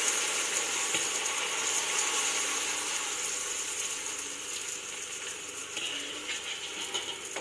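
Keropok crackers frying in hot oil in a wok, stirred with a spatula: a steady sizzling hiss full of fast, fine crackling ticks, fading slowly.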